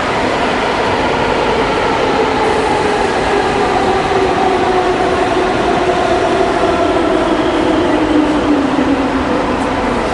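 Berlin S-Bahn electric train at a platform: a steady rumble with an electric whine that falls slowly in pitch.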